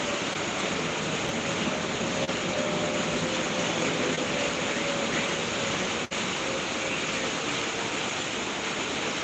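A steady rushing noise, even and unbroken, with a brief dropout about six seconds in.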